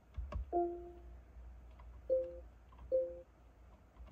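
Lexus LX570 infotainment system chiming through the cabin speakers as the joystick controller is moved and clicked. A couple of clicks are followed by a longer two-note ding about half a second in, then two shorter dings under a second apart.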